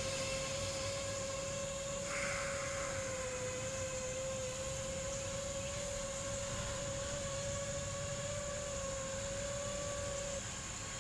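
Brushless motors and propellers of a 5-inch FPV quadcopter (iFlight Xing-E motors) giving a steady whine in flight over a faint hiss. The whine cuts off about ten seconds in.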